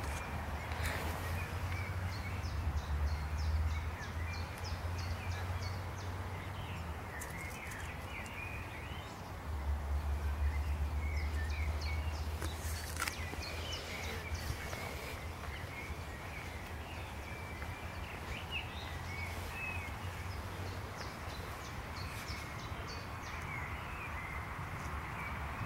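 Small birds singing and chirping in short, repeated phrases, over a low rumble that is strongest at the start and again about ten seconds in.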